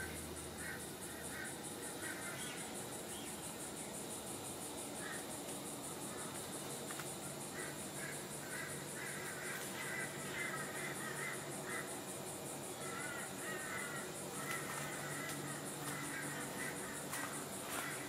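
Garden ambience: a steady, high, rapidly pulsing insect trill, with birds calling in bursts of short repeated notes from about seven seconds in.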